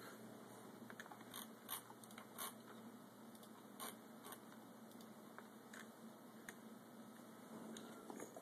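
Near-silent room tone with faint scattered clicks and light handling noise, a dozen or so short ticks spread irregularly, most of them in the first half.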